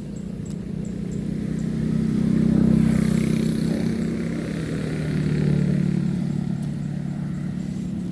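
Motor traffic driving past on the road: an engine hum grows louder to a peak about three seconds in, drops in pitch as it passes, and swells again around five and a half seconds in as more traffic goes by.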